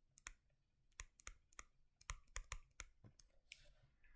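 Faint, irregular clicks, about a dozen, with a brief scratchy swish about three and a half seconds in.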